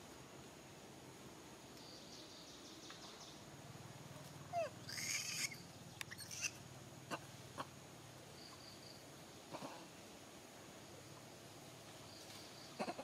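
Faint outdoor background with a brief cluster of high-pitched squeaks from an infant macaque about four and a half seconds in, followed by a few sharp clicks and two shorter squeaks later on.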